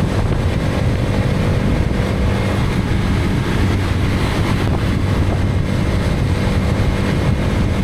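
Hero Karizma XMR motorcycle's single-cylinder engine running at a steady pace while riding, over a steady haze of road and air noise.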